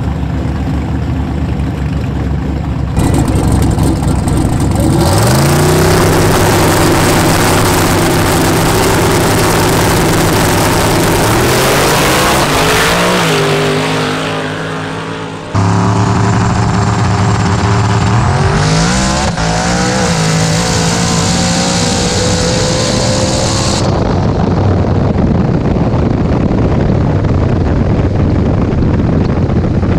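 Street-race cars at full throttle: engines climb sharply in pitch at the launch, hold, then climb again before fading away. Midway a sudden cut brings in another run, with engines rising in pitch again and then running on steadily.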